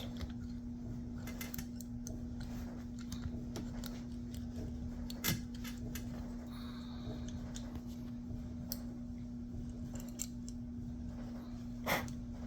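Small metal clicks and scrapes from the parts of a Rock Island Armory .45 ACP pistol being handled during reassembly, with the recoil spring and barrel bushing being worked into place. A sharper click comes about five seconds in, and the loudest comes near the end.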